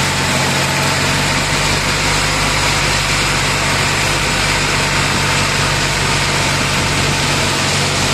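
Swaraj 744 FE tractor's three-cylinder diesel engine running at a steady speed as it pulls cage wheels and an implement through a flooded paddy field.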